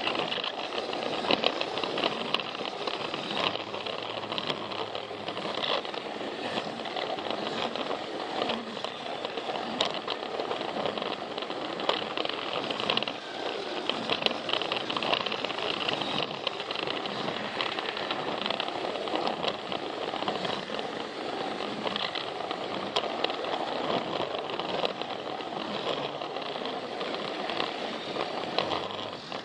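Plarail battery-powered toy train running along plastic track: a steady whir of the small motor and gears, with frequent clicks and rattles from the wheels over the track joints.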